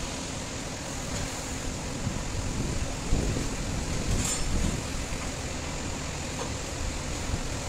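Steady low mechanical rumble of machinery, with a dull knock about three seconds in and a brief metallic clink just after.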